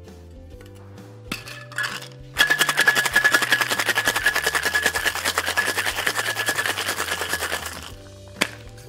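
Ice rattling hard inside a metal tin-on-tin cocktail shaker as it is shaken for about five seconds, a fast continuous rattle. A couple of light knocks come before it and one sharp knock comes near the end.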